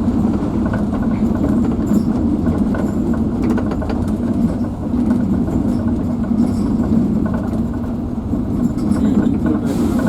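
Bus engine running and the bus body rattling, a steady low rumble heard from inside the passenger cabin while driving.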